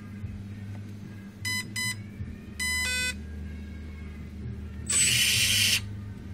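Homemade CNC drilling machine running its test routine over a low steady hum. It gives two short pitched beeps, then a longer beep that shifts pitch. About five seconds in comes a loud burst of whirring noise from the drill spindle, lasting under a second and cutting off abruptly as the drill is stopped dead.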